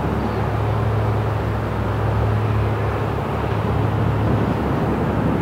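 Jet airliner taxiing past, its engines running at taxi power: a steady rushing noise over a constant low hum.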